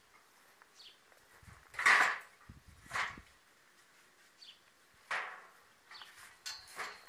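A few short scrapes and knocks, about one every second or two, the loudest about two seconds in: building materials or tools being handled on top of a masonry wall.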